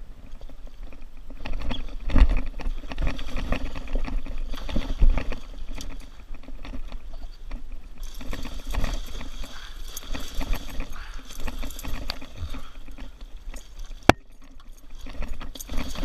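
A hooked muskie thrashing and splashing at the side of a small aluminum jon boat, with irregular knocks and clatter against the metal hull. A sharp click comes near the end.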